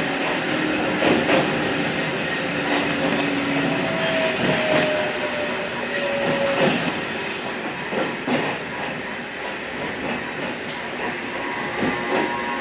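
Toyama Chiho Railway 14760 series electric train running along the line, with steady running noise and irregular clicks of the wheels over rail joints. A faint tone drifts slowly in pitch over the running noise.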